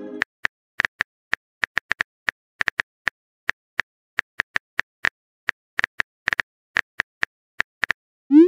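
Phone keyboard tap clicks as a text message is typed out letter by letter, a quick, uneven run of about three to four clicks a second. Right at the end a rising whoosh starts as the message is sent.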